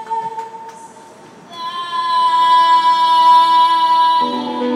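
A woman's voice holding one long, high, steady sung note with a live rock band, coming in about a second and a half in after a quieter moment. Near the end a lower sustained note takes over.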